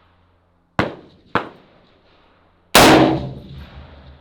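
A single .308 rifle shot from an FN SCAR 17S about three seconds in, the loudest sound, with a long echoing decay. It is preceded by two shorter, quieter sharp cracks about a second in and half a second apart.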